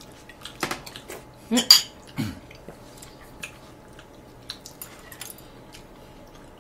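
Spoons and chopsticks clicking and clinking against ceramic bowls and plates while people eat, in scattered light clicks. A short voice sound with a falling pitch comes about one and a half to two seconds in.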